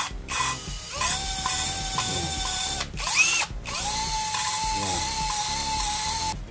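Electric drill spinning an engine valve against its seat with coarse lapping compound (valve lapping). The drill runs in two spells of about two seconds each. Each spell starts with a rising whine that settles into a steady pitch, and between them comes a brief rising spurt.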